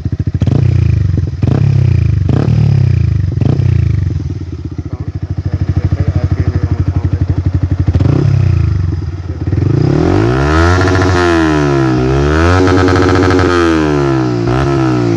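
Yamaha R15 V3's single-cylinder engine through a replica Akrapovic R1M exhaust, loud, revved on the stand: four short throttle blips in the first few seconds, a steadier stretch, then the revs swung up and down several times in the last five seconds.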